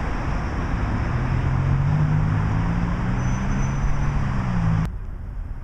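A motor vehicle engine humming over road or traffic noise, cutting off suddenly near the end.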